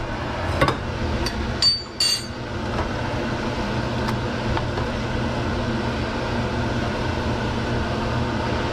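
A big spoon clinking and scraping against cookware several times in the first two seconds, the clink about two seconds in ringing briefly, with one more knock about four seconds in. A steady fan hum sits underneath.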